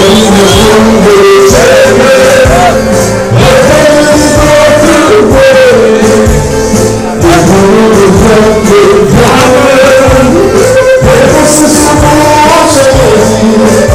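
Live Albanian folk song: a man singing into a microphone over clarinet and a band with a steady beat, played very loud.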